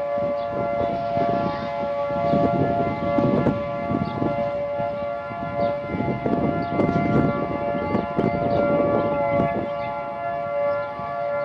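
Outdoor tornado warning siren sounding a steady tone, with a gusty low rumble underneath.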